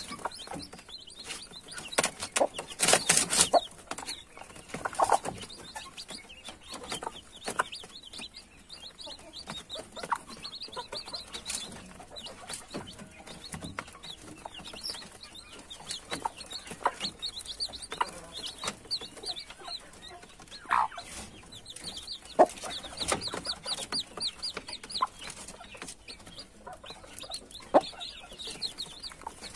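Chicks peeping continuously in short, high, falling peeps while a hen clucks now and then and beaks peck sharply at feed on a plastic tray. A burst of louder pecking taps comes about two to four seconds in.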